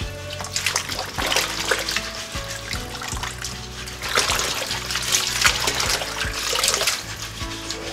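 Water trickling and splashing as rinsed napa cabbage is lifted dripping from a basin in a sink and set in a stainless steel colander, over background music. The splashing is loudest about a second in and again from about four to seven seconds.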